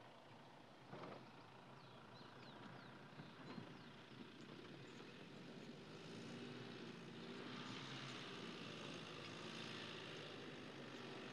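Mercedes-Benz X-Class pickup's 2.3-litre four-cylinder turbo diesel running as the truck drives slowly over rough, rocky ground. It is faint at first and grows louder from about halfway through.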